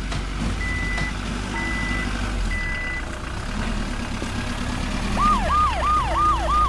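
Ambulance reversing alarm beeping three times, each beep about half a second long and about a second apart, over a low engine hum. About five seconds in, the ambulance siren starts a fast yelp, a falling wail repeating about three times a second.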